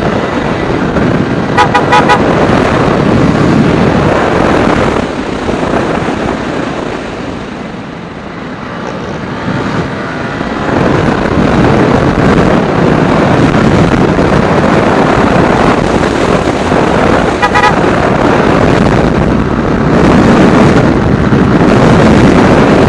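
Wind rushing over a helmet-mounted external mic with a furry dead-cat windscreen while riding a motorcycle at speed, mixed with engine and road noise. The wind noise still comes through despite the windscreen. The noise eases around 8 s and builds again after about 11 s, and a horn beeps in short pulses twice, near the start and again later on.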